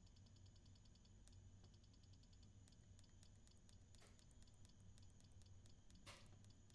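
Near silence: a faint low hum, with light clicks of a glass kiln controller's keypad buttons being pressed, two of them plainer, about four and six seconds in.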